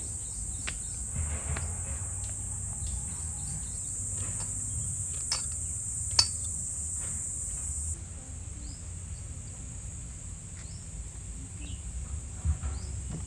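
Steady high-pitched insect chorus in a garden, turning fainter about eight seconds in, with a few light clicks and knocks; the sharpest knock comes about six seconds in.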